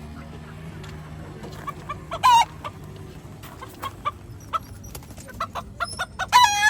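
Roosters clucking in a rapid string of short notes, with two loud calls, about two seconds in and again near the end. A low steady hum runs underneath.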